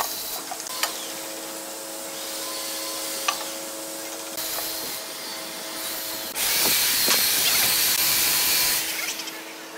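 Woodworking shop machinery: a steady machine hum with scraping noise and a few clicks, then a loud hiss starting about six seconds in and lasting about two and a half seconds.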